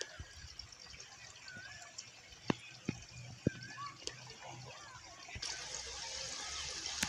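Songbirds chirping in short curling notes, with a few sharp drip-like clicks. About five seconds in, a steady rush of flowing stream water comes in abruptly.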